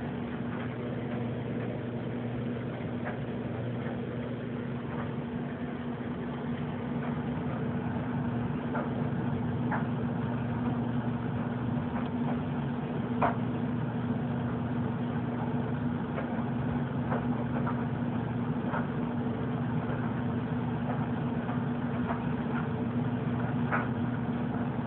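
Steady low hum with a few scattered faint clicks, one a little louder about halfway through.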